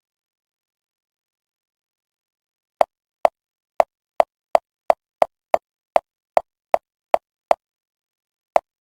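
A run of thirteen short, sharp, identical clicks at about two or three a second, starting about three seconds in, then a single click near the end.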